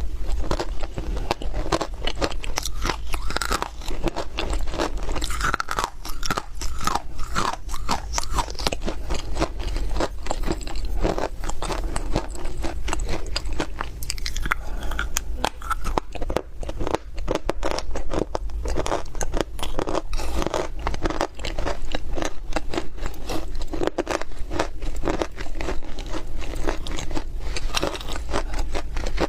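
Close-up crunching as dry clay (loess) is bitten and chewed: a dense, unbroken run of sharp crunches and gritty cracks.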